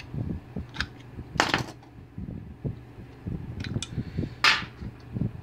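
Small metal clicks and taps as the brake lever's pivot pin is worked out of a Harley-Davidson front brake master cylinder with a screwdriver and the lever is handled over a metal tray. There are two short scraping rustles, about one and a half seconds in and near the end, over a steady low hum.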